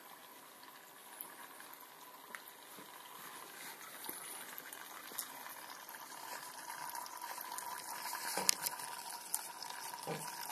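A thin stream of distillate trickling from the copper outlet spout of a homemade rakia still and splashing below, growing louder toward the end.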